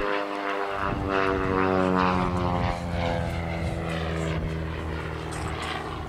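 Single-engine propeller aerobatic plane trailing smoke through a looping climb. Its engine and propeller note falls in pitch over the first three seconds, then holds a steady drone.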